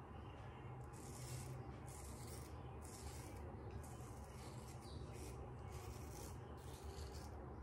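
Vintage Inoue Tosuke kamisori straight razor scraping through lathered 36-hour stubble in short repeated strokes, about one a second: the faint sound of whiskers being cut.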